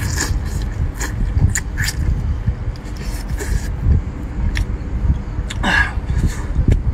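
Close-up eating sounds: lip smacks, clicks and slurps as meat is sucked off pieces of boiled fish, with a longer slurp about six seconds in, over a steady low rumble.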